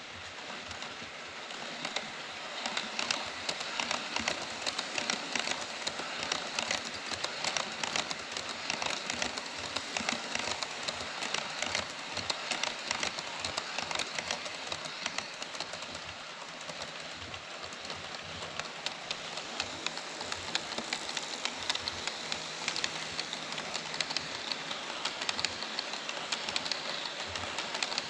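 HO-scale model trains running on KATO Unitrack: a continuous fine rattle and clicking of small metal wheels rolling over the track. An E5 series shinkansen model and a train of Taki 43000 tank cars pass.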